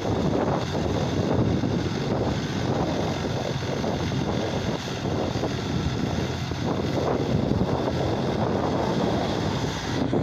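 John Deere tractor's diesel engine running steadily under heavy load as it drags a towed machine through a wet, muddy field.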